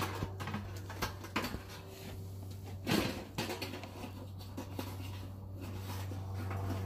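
A few short light knocks and clicks, the loudest about three seconds in, over a steady low hum.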